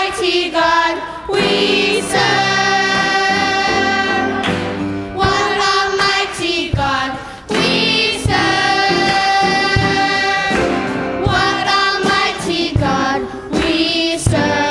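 Choir singing a church song, with several long held notes.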